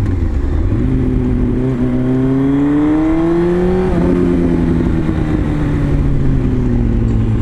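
Honda CBR inline-four sportbike engine under way, the revs climbing steadily for about three seconds and then falling back sharply about four seconds in before holding steady. Heavy wind rush on the helmet microphone underneath.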